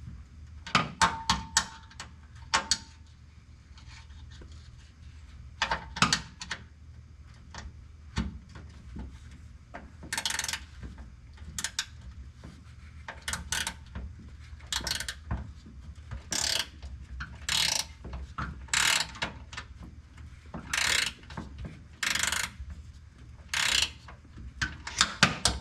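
Hand ratchet wrench worked in short strokes on a bolt, clicking in brief bursts about once a second, after a few sharp metal clicks near the start.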